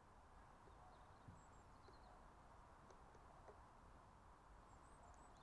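Near silence: a faint outdoor background with a few brief, faint, high bird chirps.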